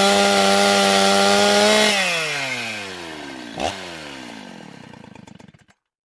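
Chainsaw engine running at a steady speed, then winding down: its pitch falls away over about four seconds, with a short sharp clunk partway through, before the sound cuts off.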